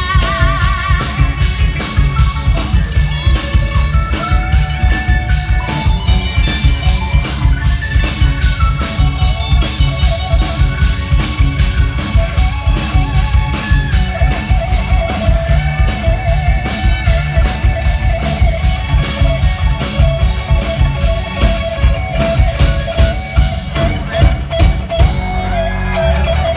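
Live, amplified Thai Isan band music played over a PA: a steady drum-kit beat with bass and electric guitar, and a woman singing with a wavering, ornamented vocal line that stands out more strongly from about halfway through.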